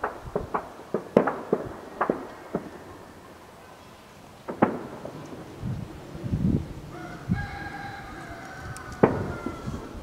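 Distant shelling and gunfire: a series of sharp cracks, close together in the first two seconds, then sparse. A rooster crows once for about two seconds near the end.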